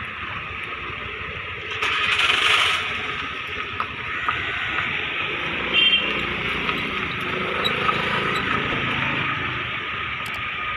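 An engine running steadily, with a short loud hiss about two seconds in.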